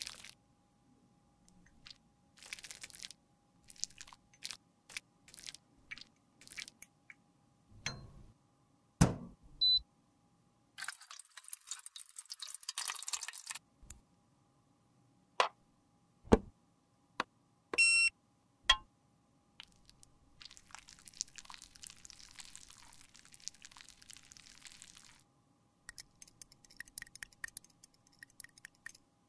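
Close-miked handling sounds: sharp clicks and taps, a metal spatula scraping lipstick, and a brush scrubbing in a steel tray of water. A short electronic beep comes about 18 seconds in.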